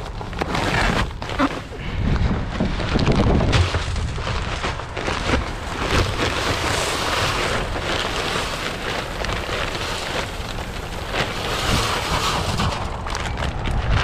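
Rustling and crinkling of plastic bags of rock salt being handled, over a steady low rumble like wind on the microphone.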